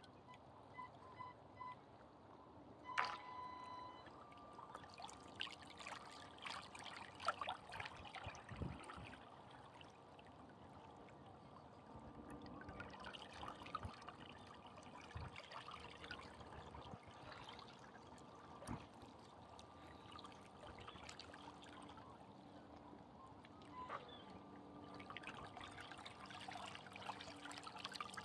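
Faint water trickling and lapping at the lake shore, with scattered small clicks.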